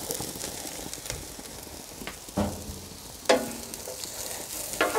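Chopped savoy cabbage sizzling in hot bacon fat in a cast-iron Dutch oven as it is tipped in and stirred with a wooden spoon, with two louder knocks about two and a half and three and a half seconds in.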